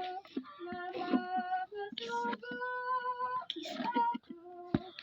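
A parrot singing in a human-like voice, holding pitched notes that step from one tone to the next, broken by short clicks and breathy noises.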